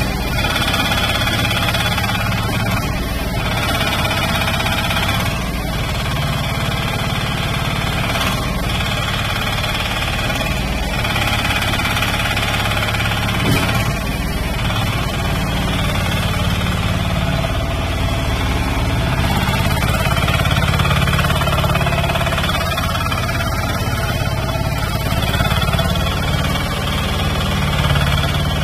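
Crawler track dumper's engine running steadily, with the machine working and moving on its tracks.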